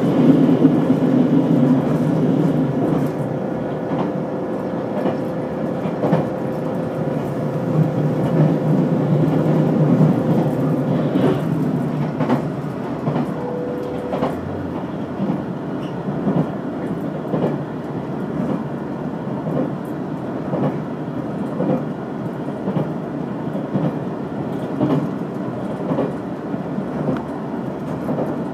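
Limited express electric train running at speed, heard from inside the passenger car: a steady rumble of wheels on rail with frequent clicks from the rail joints. A steady hum sounds over it and stops about eleven seconds in.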